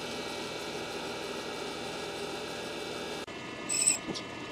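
Valve grinding machine running steadily, its motors giving a hum with a layer of hiss. About three seconds in the sound changes abruptly, and near the end there is a brief, louder high-pitched ring.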